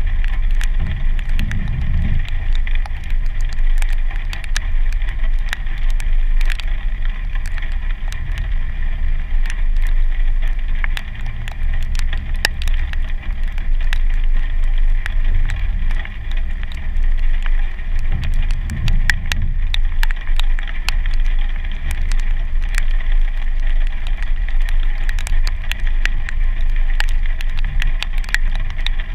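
A Jeep Wrangler's engine running as it drives over a wet, rocky trail: a steady low rumble that swells twice, about two seconds in and again around eighteen seconds. Many sharp ticks of raindrops hitting the hood-mounted camera are heard over it.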